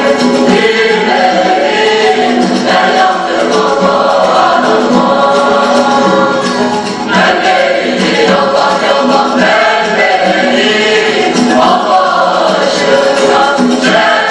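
A mixed men's and women's choir singing a Turkish folk song (türkü), accompanied by bağlama (long-necked saz lutes).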